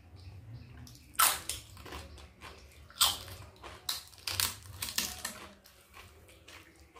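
Close-up biting and chewing of crisp fried papad with khichuri, with sharp crackling crunches about a second in, near three seconds and several more between four and five and a half seconds.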